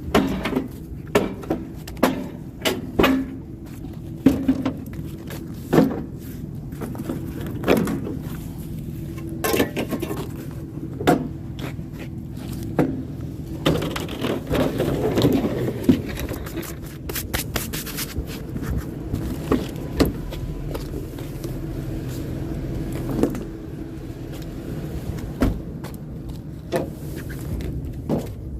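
Scrap metal being picked up and loaded: a string of irregular sharp knocks and clanks, with a longer scraping stretch midway, over the steady hum of an idling vehicle engine.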